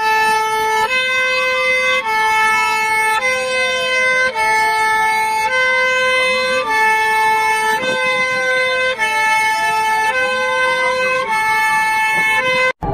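Emergency-alert alarm played in reverse: a harsh electronic two-tone signal switching between two pitches about once a second, with a siren tone gliding up and down over about five seconds beneath it. It cuts off suddenly near the end.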